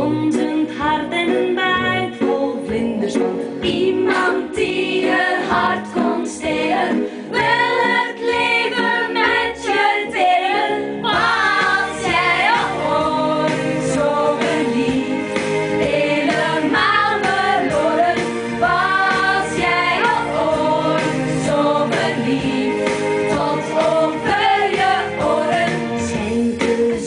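Pop song with female voices singing together over a backing track.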